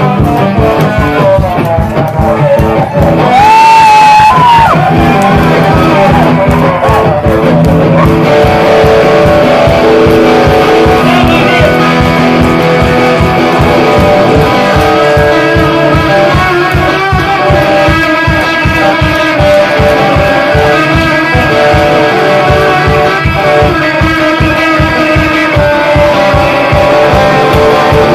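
Live amplified electric guitar played to a fast, steady beat. A loud held, bending note stands out about four seconds in.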